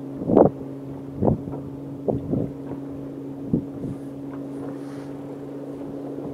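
A boat's motor running with a steady low hum. A few short whooshes of wind on the microphone come over it in the first few seconds.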